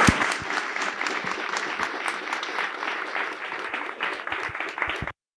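Audience applauding, the clapping easing slightly before it cuts off abruptly near the end.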